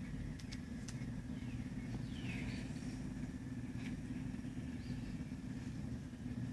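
Steady low hum with a few faint clicks and scrapes as a pickup wire is handled and soldered to a push-pull potentiometer.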